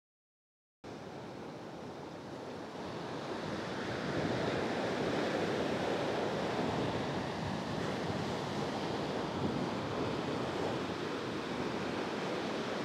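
Surf washing up on a sandy beach: a steady rush of small waves. It cuts in suddenly after dead silence about a second in and grows louder over the next few seconds.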